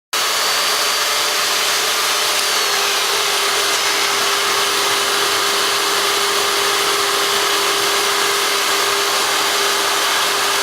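Dremel rotary tool, used as the spindle of a home-built CNC mill, running at high speed while it mills out a part, a steady high-pitched whine with a hiss of cutting. It starts abruptly at the start and holds steady throughout.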